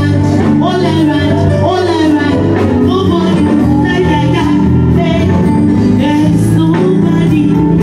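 Music with singing over a band: held chords and a steady beat, with a voice moving above them.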